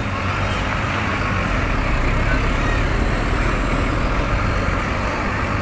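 Bus running with a steady low engine rumble and road noise, in a pause between its telolet horn melodies.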